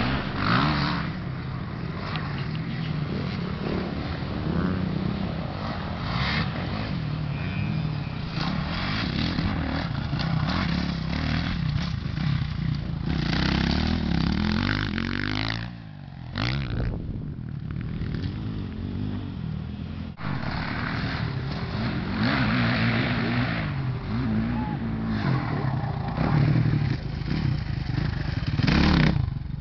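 Motocross dirt bike engines revving up and falling off again and again as the riders accelerate and shift around a dirt track. There is a short drop in the sound about halfway through.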